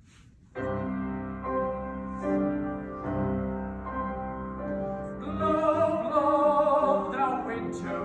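Grand piano starting the introduction of a classical art song about half a second in, with a run of loud chords. At about five seconds in, a trained male voice with vibrato joins in, singing over the piano.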